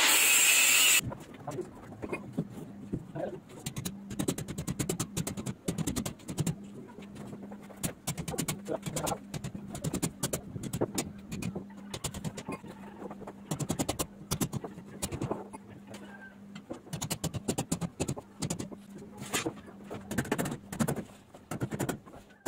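An angle grinder cutting metal for about the first second, then cutting off. After that, a hammer strikes a steel rod laid across concrete blocks many times, in irregular knocks.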